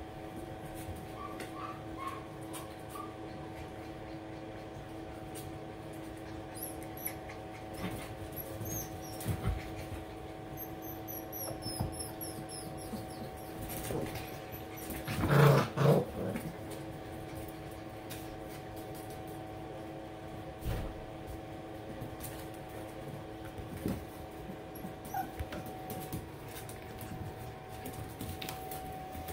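Puppies playing: small clicks and scuffles, a few faint high squeaks, and about halfway through a loud puppy bark in two quick bursts, over a steady hum.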